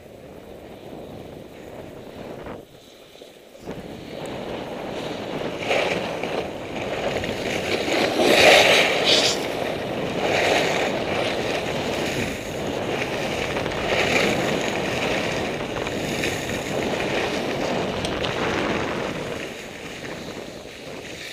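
Skis sliding and scraping over packed snow, with wind rushing over the microphone. The noise builds about four seconds in, is loudest a few seconds later, and eases off near the end as the skier slows.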